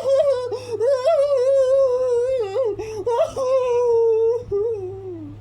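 A man's high, strained Stitch-impression voice whimpering and moaning in one drawn-out, wavering stretch, the pitch sliding down toward the end, over a faint steady low hum.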